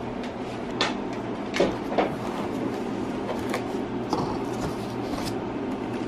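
Inflated plastic air-pillow packing crinkling as it is handled, with a few short sharp crackles and light knocks on the countertop, over a steady low hum.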